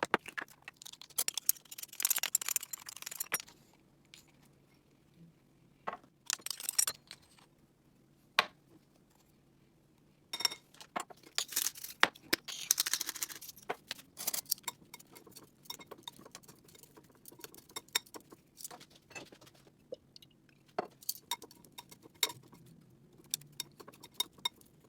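Measuring spoons and spice jars clinking and rattling in bursts of clatter, with scattered light taps and clicks between, as spices are spooned out.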